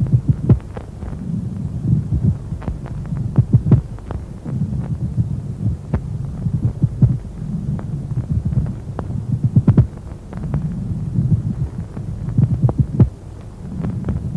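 Normal breath sounds heard through a stethoscope on the chest: soft, low, rushing swells of air that rise and fall every couple of seconds, with sharp heartbeat thumps throughout.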